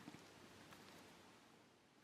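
Near silence: quiet room tone with a few faint small clicks near the start.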